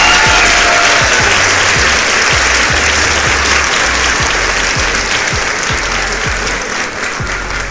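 Crowd applause and cheering over background music with a steady thumping beat, fading slowly toward the end.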